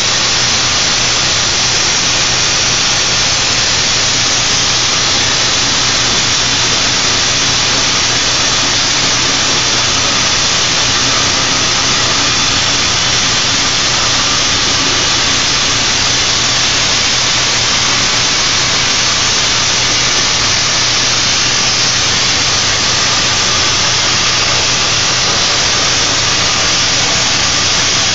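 Plasma torch of an automated pipe-cutting machine cutting through a 10-inch steel pipe: a loud, steady hiss with a low steady hum underneath.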